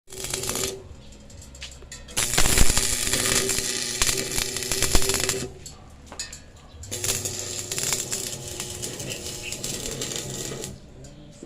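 Background music with held notes, over a string of sharp clicks and taps.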